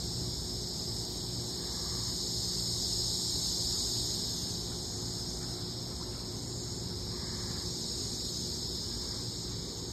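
Steady high-pitched insect chorus, unbroken throughout, over a low rumble.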